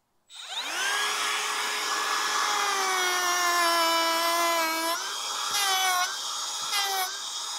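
Cordless router with a chamfer bit spinning up to a high whine about a quarter second in, then cutting a stop chamfer along the corner of an oak post. Its pitch drops and recovers several times in the second half as the bit bites into the wood.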